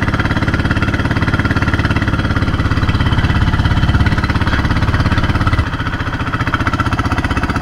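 Outrigger boat's small inboard engine running with a rapid, steady putter. Its level drops a little about three quarters of the way through.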